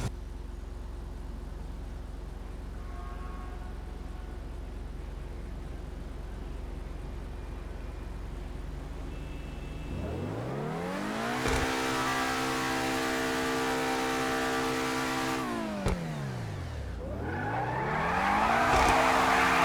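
Twin-turbocharged LS7 V8 of the Mazzanti Evantra Millecavalli, running low and steady for about ten seconds, then climbing in pitch and holding steady. About sixteen seconds in the pitch falls away and climbs again, with a loud rushing hiss joining near the end.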